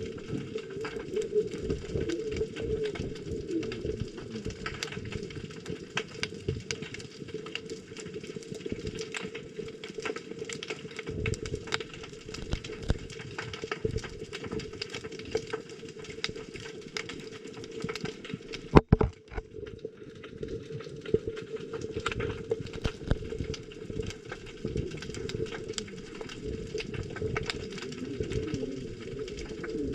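Underwater ambience picked up by a submerged camera: a steady muffled rush with a constant crackle of small clicks. About nineteen seconds in there is one sharp, loud knock, followed by a brief dropout.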